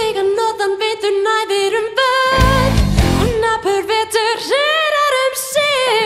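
A woman singing a held, wavering melody into a handheld microphone, amplified live, in a stage-musical rock number. The rock band drops back as the line starts, comes in briefly about two and a half seconds in, then thins out again under the voice.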